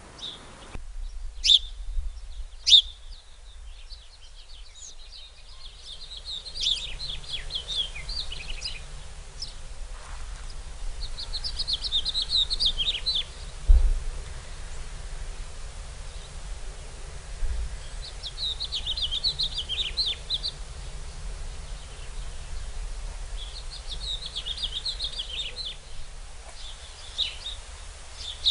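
A small bird singing in repeated chattering phrases of two to three seconds each, with two sharp single calls near the start. Steady low background noise runs underneath, with a brief thump about 14 seconds in.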